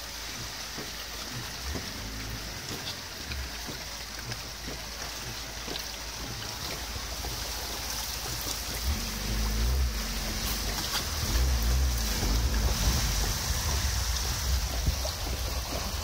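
Car driving through floodwater, heard from inside the cabin: a steady rush of water and tyre noise over a low engine rumble, getting louder about halfway through.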